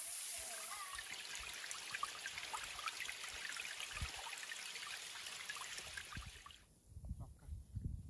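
Waterfall and the stream below it splashing over rock: a steady, splashy hiss dotted with droplet ticks that cuts off suddenly about six and a half seconds in. After it, wind buffets the microphone with a low rumble.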